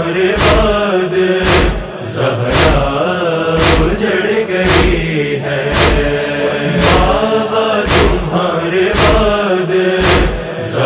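Noha lament: male voices chanting a slow, mournful melody over a heavy thumping beat that comes steadily about once a second.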